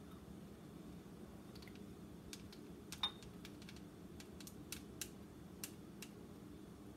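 A scattering of faint, light clicks and taps as a mini hot glue gun is worked against a small terracotta pot, the sharpest about three seconds in, over a low steady hum.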